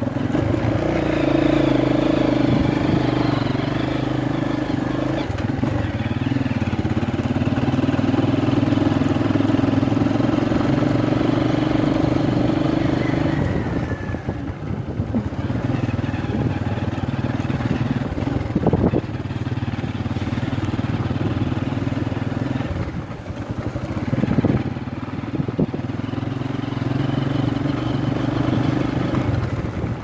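Motorcycle engine running while riding along a rough dirt track, its note rising and falling with the throttle and easing off twice along the way. A couple of sharp knocks come through in the second half.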